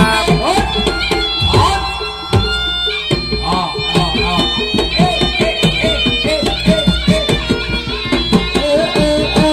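Jaranan dance music: kendang drums beating a fast, busy rhythm under a reedy wind melody that bends in pitch.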